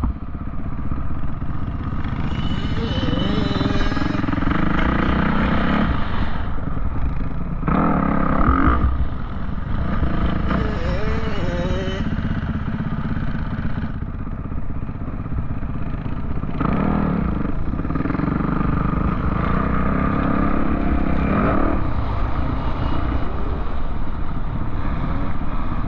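Off-road vehicle engine running hard, revving up and easing off again and again while riding.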